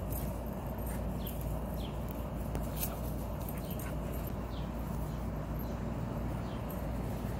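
English Setter whimpering in several short, high, falling whines spread through the clip, over a steady low background rumble with a few faint clicks.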